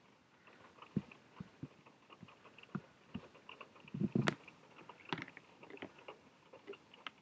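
Irregular small clicks and taps, with a louder clatter of knocks about four seconds in.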